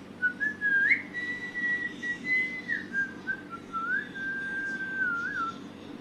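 Rose-ringed parakeet whistling: one long, clear whistle of held notes that steps down in pitch, with short upward flicks between them, lasting about five seconds.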